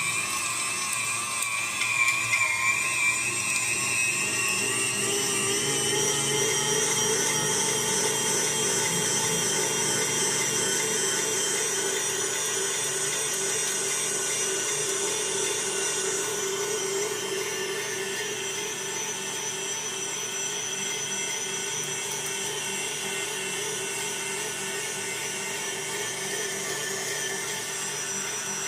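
Electric meat grinder's motor running steadily with a whine, grinding the last of the beef through. Its pitch wavers and climbs a few seconds in, then holds level.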